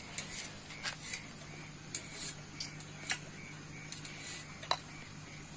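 Light metal clicks and taps as the steel prongs of a multi-pronged fishing spear head are handled against each other: about half a dozen separate ticks, the sharpest a little past halfway and near the end. A faint steady hum runs underneath.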